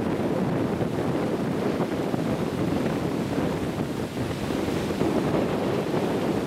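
Steady wind buffeting the microphone, over small waves breaking on a sandy beach.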